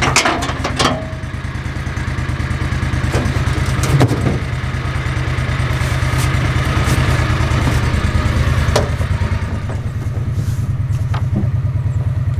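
Old Gator utility vehicle's engine running steadily with an even low pulse, and a few knocks and rattles, the loudest about four seconds in.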